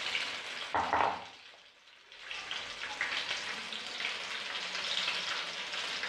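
Besan-battered paneer pieces sizzling and crackling as they deep-fry in hot oil. The sizzle has a brief louder burst about a second in, drops almost to nothing for under a second, then comes back steady.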